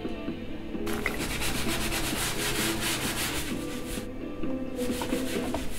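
A plate being rubbed with a dish cloth in quick back-and-forth strokes, starting about a second in and stopping about four seconds in, over background music.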